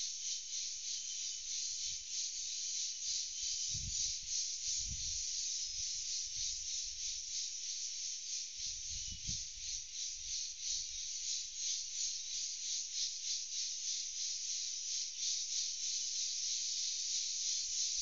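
A chorus of insects buzzing in a steady, fast pulsing drone. A few low thumps come about four, five and nine seconds in.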